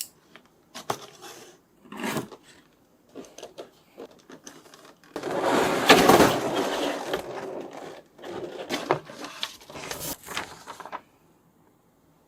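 Toy packaging being handled and opened: irregular rustling and scraping of box and plastic with a few short clicks, loudest about five to seven seconds in, then stopping about a second before the end.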